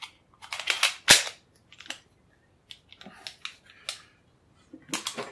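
Metallic clicks and snaps of a Para Ordnance Expert Carry .45 ACP pistol being function-checked after reassembly, its slide worked and its controls operated by hand. A loud sharp snap comes about a second in, lighter clicks follow, and a quick cluster of snaps comes near the end.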